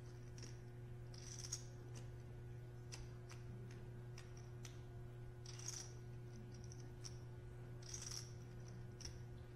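Faint clicks of poker chips being handled at the table, with a few brief hissy rustles, over a low steady electrical hum.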